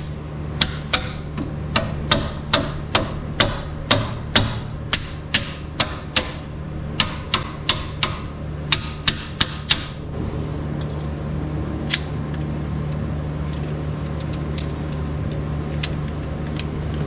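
Sharp metal-on-metal clicks or taps from hand-tool work on a straight-six's valve gear, about three a second for the first ten seconds, then only a few scattered ones, over a steady low hum.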